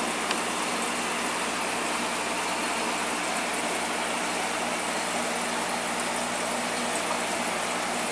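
Steady rush of aquarium filtration water and air, with a low, even pump hum beneath it.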